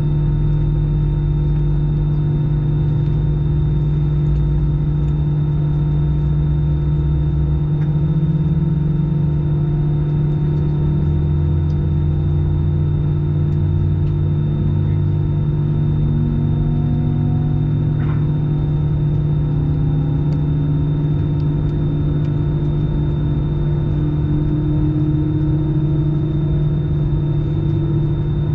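Steady loud hum and low rumble inside the cabin of a parked Airbus A319, with a thin high tone over it and faint slowly rising whines from about halfway through.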